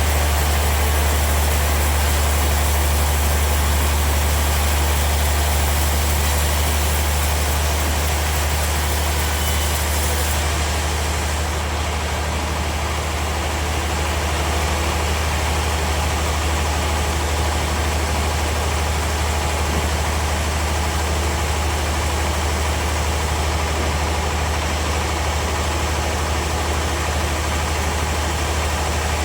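Sawmill machinery running steadily with a loud, deep drone under a broad hiss. The highest hiss drops away about ten seconds in.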